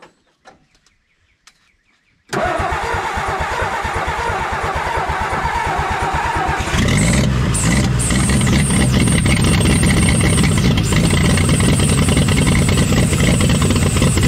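A 1962 Ford F-600's 262 inline-six cranks on the starter with an even pulsing for about four seconds. It then catches and runs steadily, louder and deeper once it fires. This is a start attempt on gasoline from the fuel tank, just after a carburetor float adjustment.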